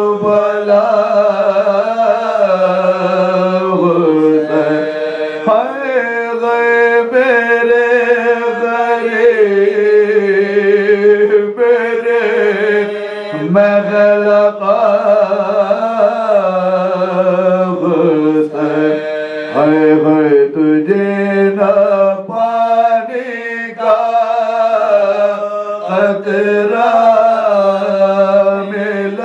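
Soz khwani: men chanting a Muharram elegy (soz) in Urdu without instruments, a lead voice winding through long melodic phrases with other voices joining, over a steady held low note.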